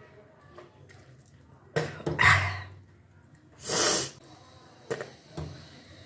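A person retching and vomiting up salt water during kunjal kriya, the deliberate yogic emptying of the stomach. It comes in a few sudden heaves: about two seconds in, a longer one near four seconds, and two short ones near the end.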